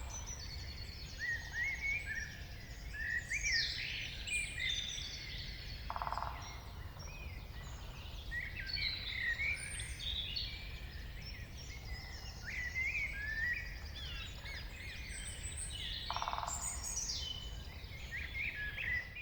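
Morning dawn chorus in a forest: several songbirds sing and chirp at once, overlapping trills and whistles. A short low rattle comes twice, about ten seconds apart, over a steady low rumble.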